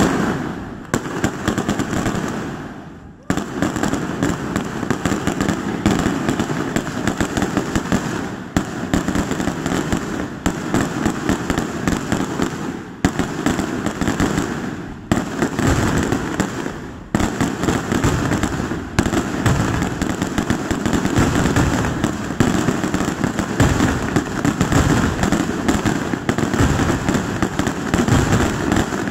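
Aerial fireworks display: shells bursting in quick succession with crackle, a near-continuous barrage of bangs that fades briefly about three seconds in before picking up again.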